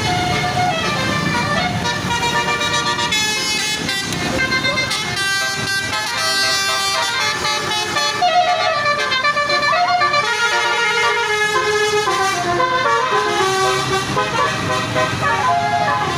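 Bus telolet horn: a set of multi-tone air horns playing a melodic tune, stepping from note to note, over a low background rumble.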